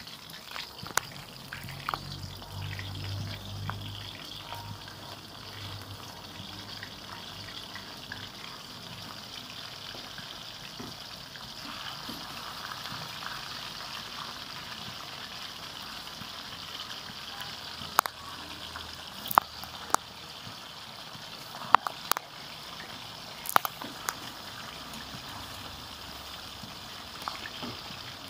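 Steady hissing of food cooking in a pot or pan, with a handful of sharp clinks in the second half.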